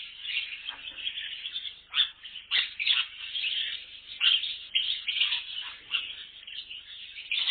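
A colony of small captive birds chirping and chattering together: many overlapping calls, with sharper, louder chirps standing out every second or so.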